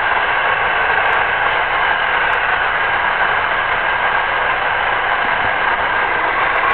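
Radio-controlled tank running as it drives, a steady whirring hiss with a faint constant whine and no change in level.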